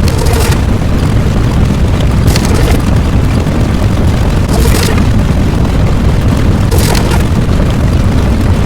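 Loud, continuous booming rumble sound effect, with a brighter hissing burst about every two seconds.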